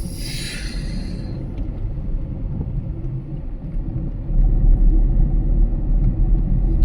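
Low, steady rumble of a moving car on the road, growing louder about four seconds in. A brief hiss sweeps past in the first second.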